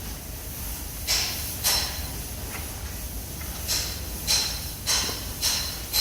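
Metal struck about seven times with a hammer, sharp blows with a high metallic ring, coming roughly 0.6 s apart in two short runs.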